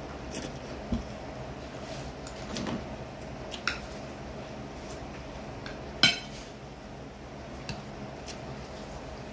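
A spoon clinking against dishware in scattered light taps while eating soup, the loudest tap about six seconds in.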